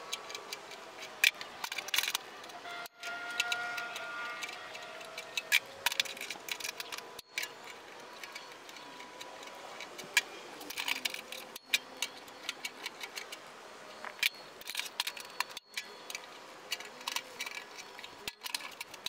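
Irregular light metallic clicks and clinks of a hand-squeezed folding tool working along a car door skin's flange, folding it over onto the inner door frame.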